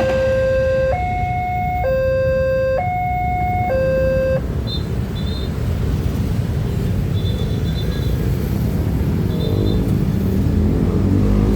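Railway level-crossing warning alarm sounding an alternating two-tone signal, a low and a high tone of about a second each, which stops about four seconds in. Then a steady rumble of road traffic, with vehicle engines revving up near the end.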